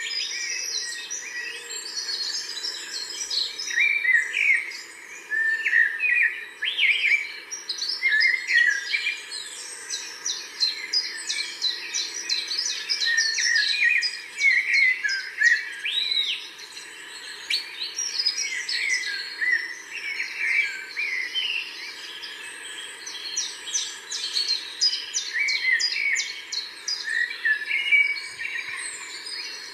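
Many small birds chirping and singing at once, a dense overlapping chorus of short high chirps and trills.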